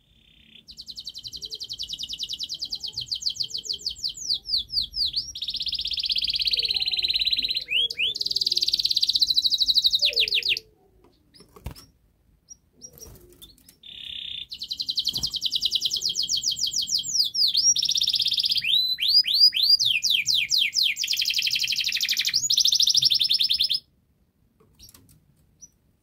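Domestic canary singing: two long song phrases of fast trills and rapidly repeated sweeping notes, each about ten seconds long, with a short pause between them broken by a few clicks.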